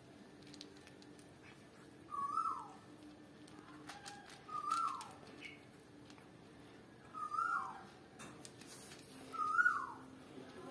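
A short high whistle that slides down in pitch, heard four times about every two and a half seconds, over faint crunching of a cat eating dry kibble.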